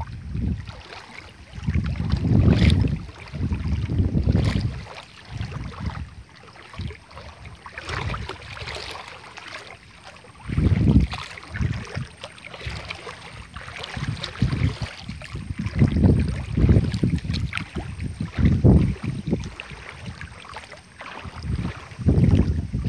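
Wind buffeting the microphone in irregular low gusts that swell and fade every second or two, over a faint outdoor hiss.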